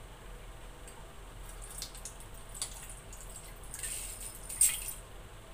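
Water poured from a drinking glass through a metal mesh strainer into an enamel basin: a short splash about four seconds in, ending in a sharp clink. A few light clicks come before it.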